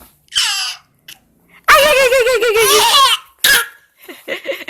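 A baby laughing hard in high-pitched bursts: a short squeal, then a long wavering belly laugh, then short choppy catches near the end that break into coughing.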